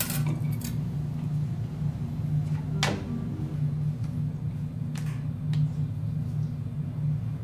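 A steady low hum, with one sharp metallic clink about three seconds in and two fainter taps later, as steel utensils or dishes touch at a teppanyaki griddle.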